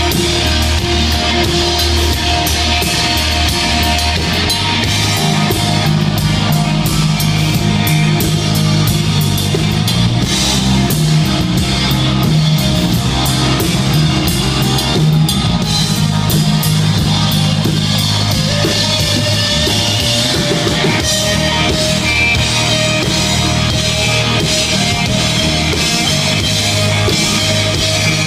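Rock band playing live, with electric guitars over a drum kit.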